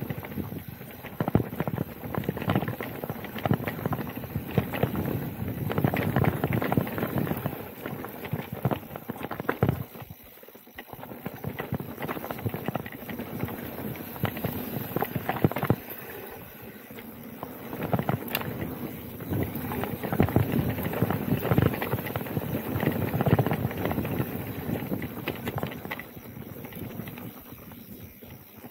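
Specialized Turbo Levo Gen 3 electric mountain bike rattling and knocking as it is ridden fast down a rough dirt singletrack, a dense irregular clatter of impacts, easing briefly about ten seconds in and again around sixteen seconds.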